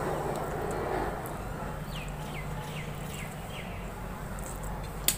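Mouth sounds of eating noodles off a fork, slurping and chewing in the first second. About two seconds in, a bird calls a quick run of five short falling chirps, and a single sharp click comes near the end.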